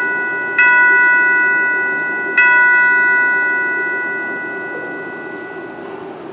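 Altar bell rung at the elevation of the chalice, marking the consecration at Mass: two clear strikes about two seconds apart, each ringing with several steady tones and fading away, with the ring of an earlier strike still dying out at the start.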